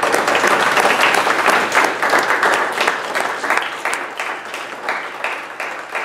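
A roomful of people applauding, many hands clapping at once; the clapping eases a little over the last few seconds.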